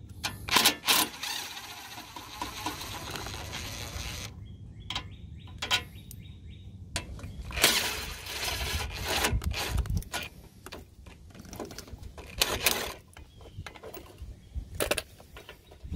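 DeWalt cordless impact driver backing out hex-head bolts from a fog-light bracket. It runs in two runs of a few seconds each, then in shorter bursts near the end, with clicks of the bit and bracket in between.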